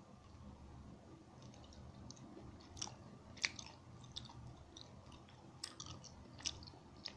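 Close-up chewing of a bite of sauce-coated fried Korean rice cake: soft, wet chewing with a few faint sharp crunches scattered through it.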